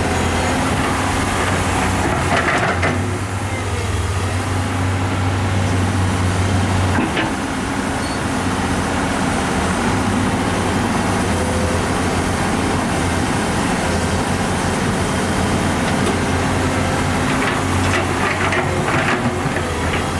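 Diesel engine of heavy earthmoving machinery running steadily under load, with short rattles about two seconds in and again near the end.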